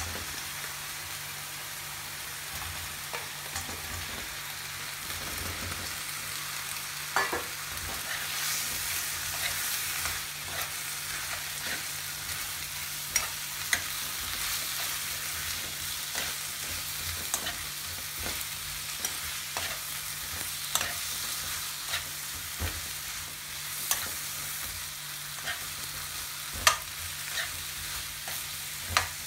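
Food frying with a steady sizzle in a wok: mushrooms in onion paste, stirred with a metal spoon that scrapes and clicks against the pan now and then.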